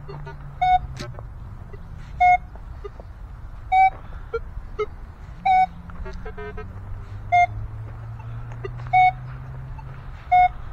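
Minelab Equinox 900 metal detector sounding a short mid-pitched target beep about every one and a half seconds as the coil is swung back and forth, with fainter chirps between the beeps and a low steady hum underneath.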